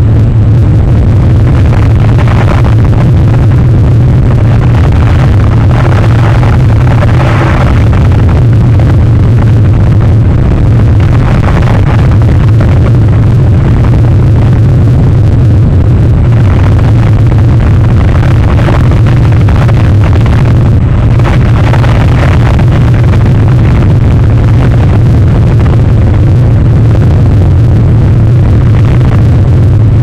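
Loud, steady roar of storm wind on an outdoor microphone, mixed with the rush of big surf, swelling every few seconds.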